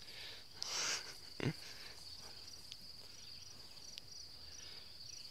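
Insects trilling steadily on one high, even pitch. A short rustle about a second in, then a brief knock.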